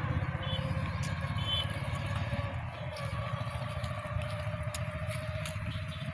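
A motor running steadily, its pitch creeping slowly upward over a few seconds, with a few light clicks.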